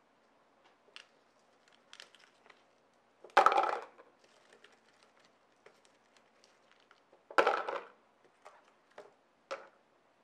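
Frozen noni-water cubes being worked out of a silicone ice cube tray and dropped into a plastic measuring jug: scattered small cracks and ticks, and two loud clatters about three and a half and seven and a half seconds in.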